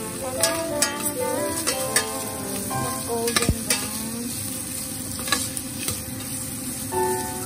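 Food sizzling in hot oil in a stainless steel pot while a metal spatula stirs and scrapes it, with scattered clicks and knocks of the spatula against the pot.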